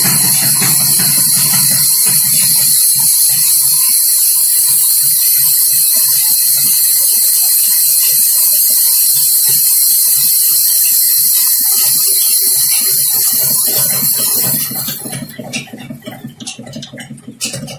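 Large sawmill band saw cutting through a log: a loud, steady high hiss of the blade in the wood. It stops about fifteen seconds in, leaving the quieter sound of the machinery running and a few clicks.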